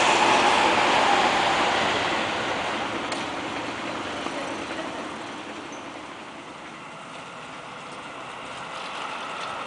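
A Seibu Shinjuku Line electric commuter train running across an elevated steel viaduct, its rumble fading steadily over several seconds as it moves away. Toward the end another train is faintly heard approaching, the sound growing a little louder.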